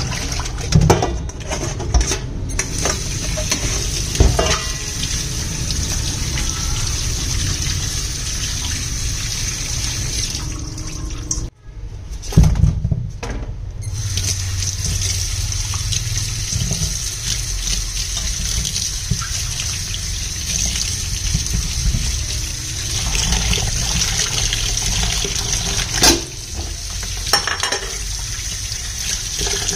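Kitchen tap running into a stainless steel bowl in the sink, water splashing as hands rinse fish pieces and then tomatoes. The flow breaks off suddenly for a moment about a third of the way through, and a few sharp knocks stand out.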